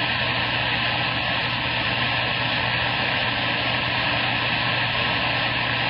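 CB radio receiver static: a steady hiss from the radio's speaker between transmissions, with a low hum under it.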